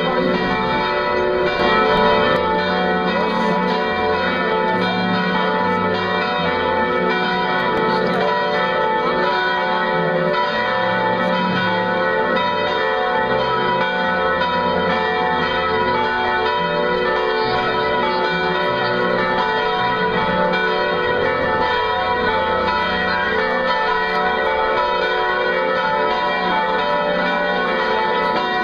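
Church bells ringing on and on, many ringing tones overlapping.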